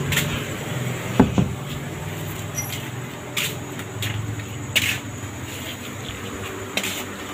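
Scattered short knocks and clicks of kitchenware being handled: a plate of rice and a mortar of sambal picked up and carried, with about five separate knocks.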